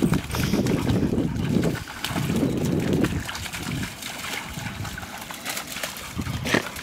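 Two Labrador retrievers wading and splashing through a shallow muddy puddle: water sloshing and slapping around their legs, heaviest in the first three seconds, then lighter, scattered splashes.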